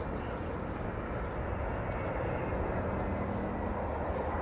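Jet airliner on approach, its engine noise a steady rumble that slowly grows louder as it nears.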